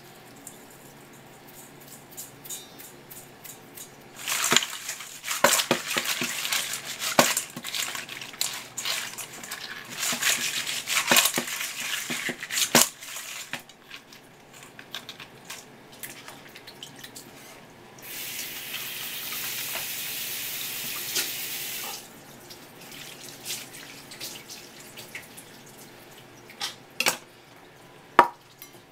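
Cut pieces of blue swimming crab being tossed with salt by hand in a stainless steel bowl: irregular wet rustling with shells clicking against the steel. A steady hiss of running tap water follows for about four seconds, and a few separate knocks come near the end.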